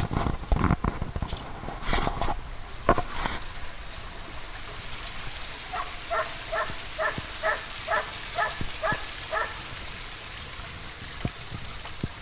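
Dogs wading in a shallow pond, water sloshing under a steady high hiss, with a few knocks and rustles in the first three seconds. About six seconds in, a dog gives a quick run of about ten high yaps, roughly three a second.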